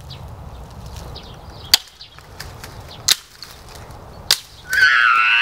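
A hatchet chopping firewood: three sharp separate strikes, about a second and a half apart. Near the end a loud, high-pitched cry of about a second rings out.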